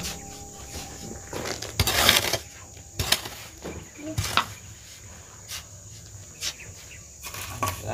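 Steady high-pitched insect drone, with a scattering of short knocks and one longer scrape about two seconds in.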